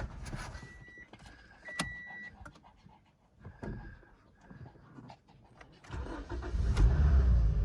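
Clicks and knocks, with two short high-pitched tones in the first couple of seconds, then a car engine starts about six seconds in and runs at idle.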